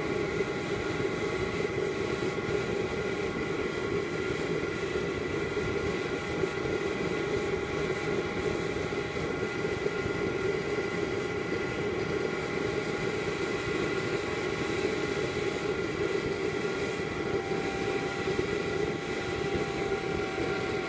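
Small waste-oil stove made from a fire extinguisher, burning on forced air with a blue flame: a steady rushing burn with a steady whine of several tones over it. The clean blue flame is the sign of complete combustion.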